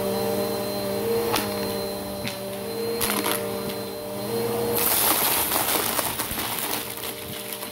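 Bissell PowerForce Helix upright vacuum cleaner running on carpet with a steady motor hum and a thin high whine, and a few sharp clicks as small bits are picked up. About five seconds in, a dense rattling crackle drowns out the motor as the head pushes into a pile of wooden letter tiles and small blue discs. The crackle eases off near the end.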